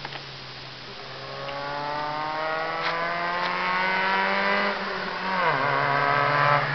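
Honda Civic's 1.3-litre D13B2 four-cylinder engine running with no muffler, accelerating toward the listener. Its note climbs steadily in pitch and grows louder, drops sharply a little after five seconds in, then climbs again.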